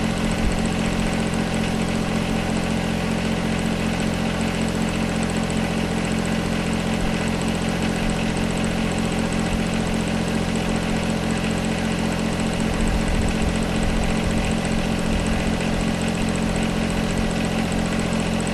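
John Deere 1025R compact tractor's three-cylinder diesel engine running steadily at low revs, getting a little louder about two-thirds of the way through.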